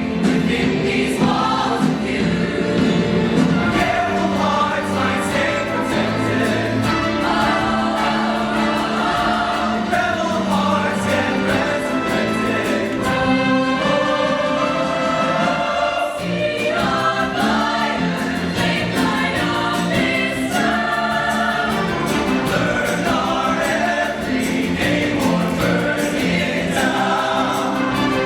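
High school show choir singing in parts with live instrumental backing, a continuous song.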